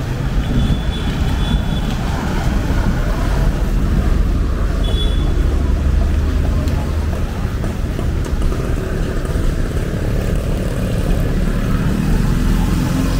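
Road traffic on wet city streets: a steady low rumble of passing cars and motorbikes, with two brief high tones near the start and about five seconds in.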